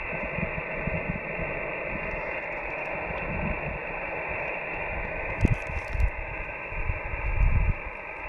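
Xiegu G90 HF transceiver's speaker hissing with steady band static in SSB receive, a muffled, narrow hiss with no station on frequency. Low wind buffeting on the microphone and a brief rustle about five and a half seconds in.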